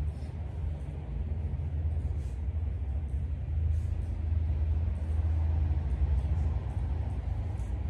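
A steady low rumble, with a few faint, short ticks above it.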